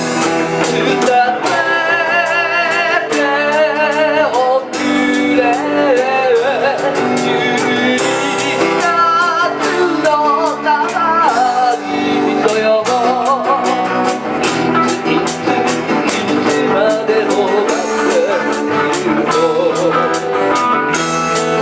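Small live band playing a Japanese pop song: a man singing into a microphone over acoustic guitar, electric bass and electric guitar, with a steady beat.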